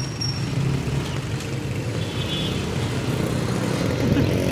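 Motorcycle engine running steadily under way in street traffic, a continuous low rumble.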